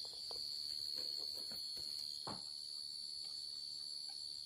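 Crickets trilling in a steady, unbroken high-pitched drone, with a few faint rustles among the leaves, the clearest about two seconds in.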